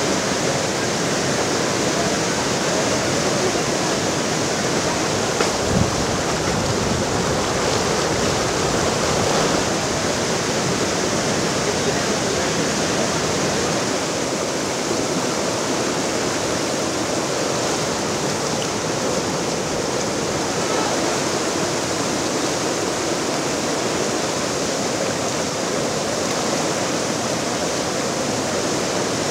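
Muddy flash-flood river water rushing steadily in churning rapids as it pours through a breached earthen embankment. One brief low thump about six seconds in.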